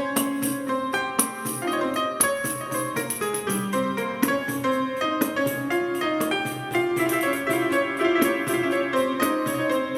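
Live acoustic jazz ensemble: piano playing a moving line of notes over hand percussion and bass, with quick percussion strokes keeping a steady rhythm.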